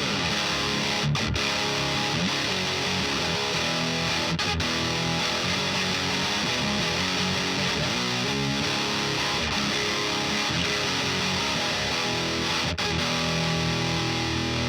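Distorted electric guitar, a Chapman ML1 Modern with DiMarzio D-Activator pickups, played through a Diezel VH4 preamp pedal into a miked guitar cabinet. It plays continuous high-gain riffs with a few brief stops.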